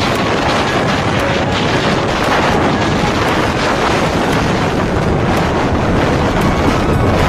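Strong storm wind buffeting the microphone: a loud, steady rush of wind noise.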